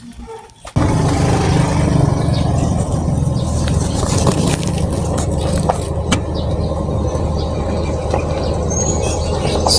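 Motor vehicle engine running steadily and loud, setting in abruptly about a second in.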